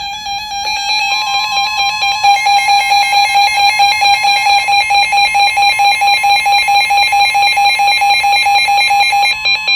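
Emergency Alert System attention signal, a loud two-tone alarm that heralds a National Weather Service flash flood warning. A steady tone plays throughout, and a second, slightly higher steady tone joins about a second in.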